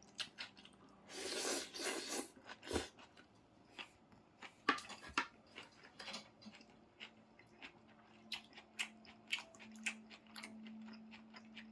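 Close-miked eating of rice noodles: chewing with many small clicks and taps, and a louder rushing stretch about a second in.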